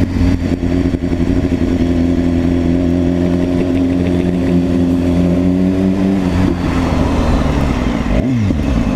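BMW S1000RR inline-four engine running at steady revs while riding. About six seconds in the note changes as the throttle eases, and near the end the pitch dips sharply and climbs again.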